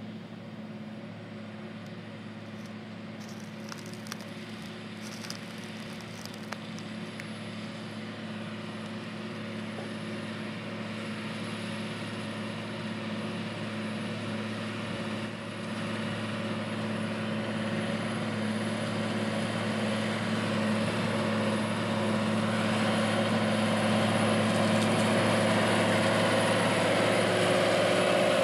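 New Holland T9.450 articulated four-wheel-drive tractor's 12.9-litre FPT diesel engine working under load as it pulls a Turbo-Till tillage tool. A steady drone grows steadily louder as the tractor approaches.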